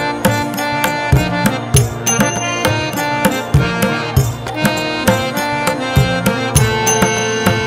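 Instrumental music: a steady drum beat, a little under two strokes a second, under sustained melodic instrument lines.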